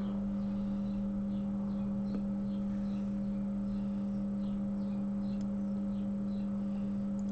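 A steady electrical hum from the repair bench equipment, with faint, irregular scratching from underfill being scraped off a phone's logic board.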